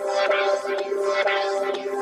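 Swobbler synthesizer sound: a sustained buzzy electronic chord whose brightness wobbles up and down about twice a second. It is a steady carrier tone for an FFT vocoder.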